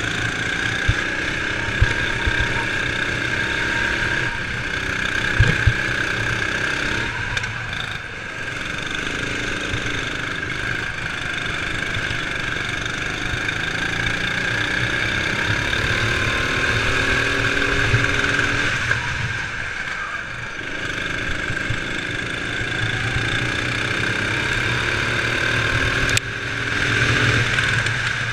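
Sodi RX7 rental kart engines racing, heard onboard: a steady engine note whose pitch climbs as the kart accelerates out of corners and drops off as it lifts, with a close pack of other karts running alongside. It briefly eases twice and gets louder suddenly near the end.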